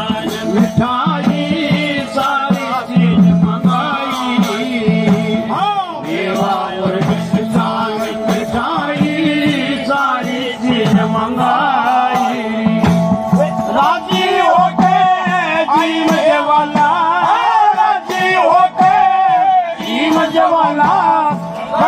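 Folk music ensemble performing live: male voices singing a wavering melody over a held drone note, with a frame drum keeping a steady beat and stringed instruments playing along.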